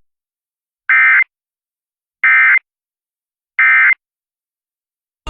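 Emergency Alert System end-of-message signal: three short bursts of SAME digital data tones about a second apart, with silence between, marking the end of the relayed alert.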